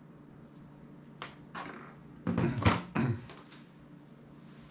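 Handling noises on a table as a smartphone is set down: a few light clicks, then a cluster of heavier knocks and thuds about two to three seconds in, over a faint steady hum.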